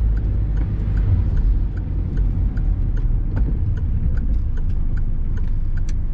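Car driving on a wet road heard from inside the cabin: a steady low road and engine rumble, with a regular light ticking about three times a second.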